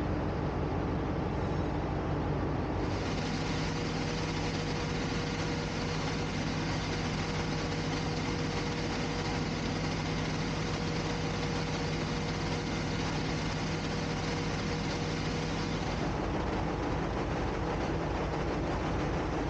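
Engine-room machinery running: a loud, steady drone of diesel engines and generators. Its character changes about three seconds in and again near the end. In between, a steady hum of several tones sounds over the noise.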